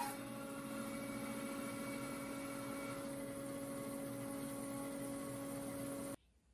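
Laguna 14BX bandsaw running free with the blade out of the wood, a steady motor hum; it stops abruptly near the end.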